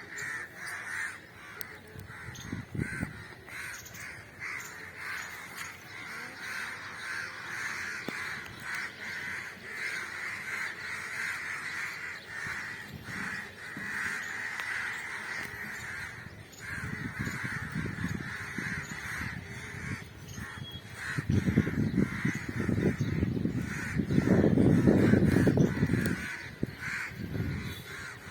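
A flock of birds calling continuously, many overlapping calls at once. A low rumbling noise swells up in the second half and becomes the loudest sound near the end.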